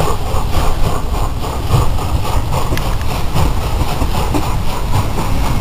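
Steam locomotive hauling a passenger train past, its exhaust chuffing in a steady rhythm over the rumble of the train. Wind buffets the microphone.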